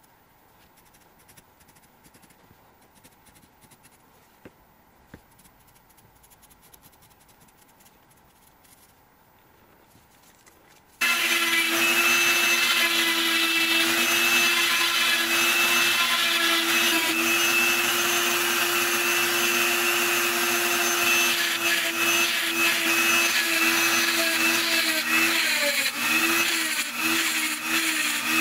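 Faint scratching of a marker on the stone, then about a third of the way in a Dremel rotary tool starts suddenly and runs with a steady whine as its diamond burr grinds into the rock. Near the end its pitch dips briefly several times.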